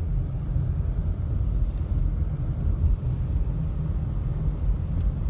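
Steady low rumble of a car driving, heard from inside the cabin, with one faint tick about five seconds in.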